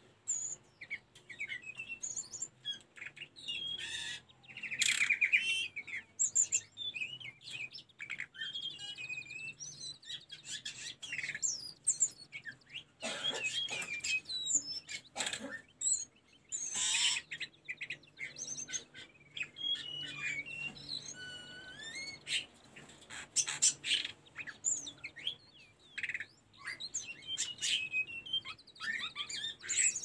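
Hill blue flycatcher (tledekan gunung) singing: a long, fast run of varied high whistled phrases and twittering trills with few pauses.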